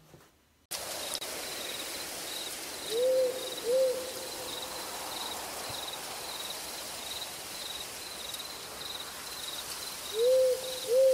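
Night-forest ambience: an owl gives two short hoots, and about seven seconds later two more. These are the loudest sounds, over steady high insect chirping at about two a second and an even hiss. It all cuts in suddenly just under a second in.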